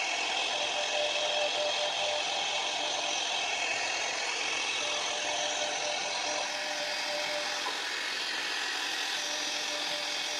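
CNC router spindle running steadily as its bit cuts outlines into a plywood sheet. The whine is even, with a mid-pitched tone that comes and goes.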